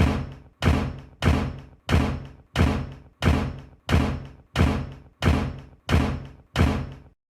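A steady series of eleven heavy thuds, about one and a half a second, each dying away with a short low ring before the next, stopping suddenly near the end.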